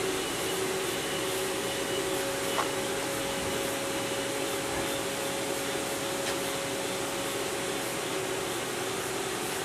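Mori Seiki ZL-15 CNC lathe running: a steady machine hiss and hum, with a faint tick about two and a half seconds in.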